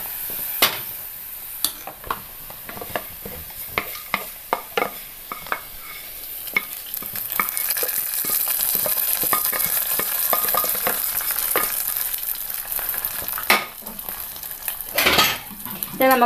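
Hot oil tempering (mustard seeds, shallots, dried red chillies, curry leaves) scraped with a wooden spatula from a non-stick pan into a pot of green gram curry. A run of sharp scraping clicks comes first; about halfway through, a high sizzle builds as the hot oil meets the curry.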